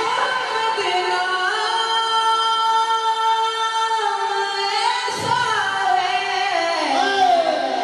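Naqabat, an Urdu devotional praise chant, sung unaccompanied by a single voice. It holds one long note for several seconds, then slides down through a falling, ornamented phrase near the end.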